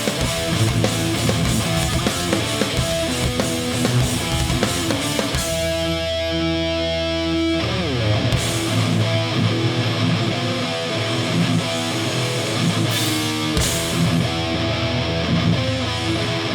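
Live hardcore punk band playing an instrumental passage: distorted electric guitars, bass and drums. About six seconds in, a held chord rings out for a couple of seconds with the cymbals dropped out, then the full band drives on.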